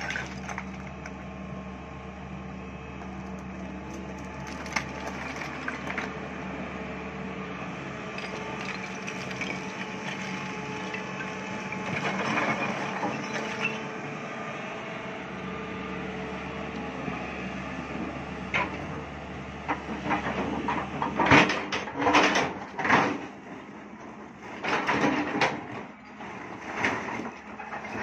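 Sany 350 crawler excavator's diesel engine running steadily while it works. In the second half, a series of loud crunching knocks and scrapes as the bucket digs into and hits broken rock.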